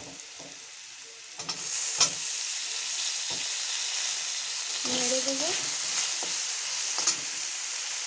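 Chopped tomatoes go into hot oil in a karahi with frying onion and potato, and a steady sizzle sets in about a second and a half in. A slotted metal spatula stirs and scrapes through them, clicking sharply against the pan twice.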